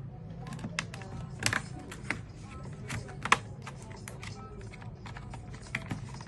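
Irregular plastic clicks and snaps as the clips of a laptop's bottom cover are pried loose with a plastic card, the loudest snaps about one and a half and three and a third seconds in. Music plays underneath.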